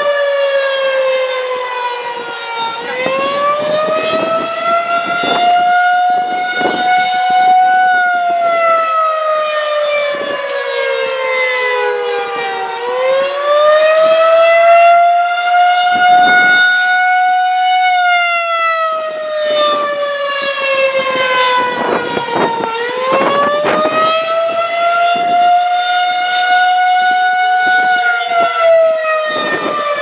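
Federal Signal 2001-SRNB rotating electromechanical siren sounding the attack signal. It is a wail that climbs quickly, holds, then slowly falls, starting a new climb about every ten seconds, three times.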